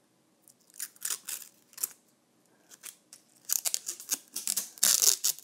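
Close-miked handling of a white plastic GE Cync smart plug: a few scattered plastic clicks and rubs, then, from about three and a half seconds in, a quick run of crackling as its clear protective film is peeled off.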